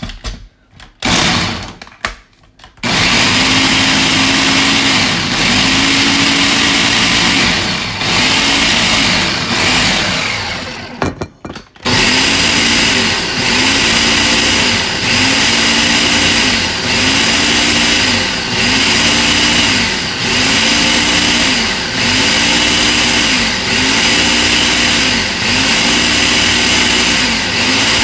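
A Ninja blender blending a thick green smoothie, after a few knocks as the jar goes onto the base. The motor starts about three seconds in and dips several times. It stops briefly around eleven seconds, then runs in a regular pulsing cycle, its pitch rising and falling about every second and a half.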